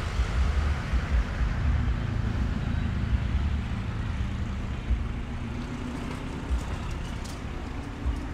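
Steady low rumble of urban street noise, with a faint hum running through it.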